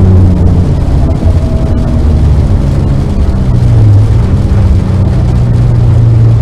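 Car engine heard from inside the cabin, pulling at moderate revs. The pitch drops early on and climbs again about four seconds in.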